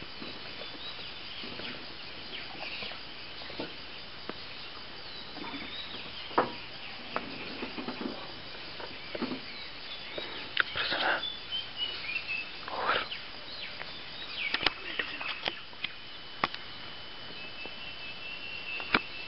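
Forest ambience: steady background hiss with scattered short bird chirps and calls, a few louder calls around the middle, occasional clicks, and a thin steady high insect tone through the second half.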